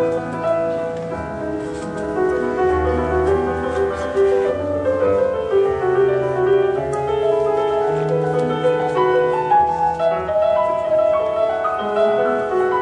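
Grand piano played solo in a flowing passage: a melody moving over held bass notes, with no pause.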